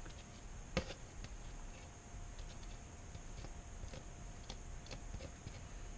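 Faint scattered light ticks and clicks from a mixing cup being handled while resin is poured into a PVC pipe mold, with one small knock about a second in. A faint steady whine sits underneath.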